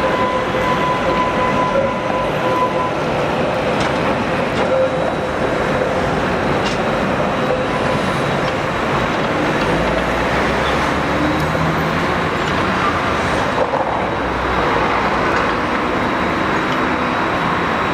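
Tatra T3 tram running on street track, a steady loud rumble and hiss, with a held whine during the first few seconds.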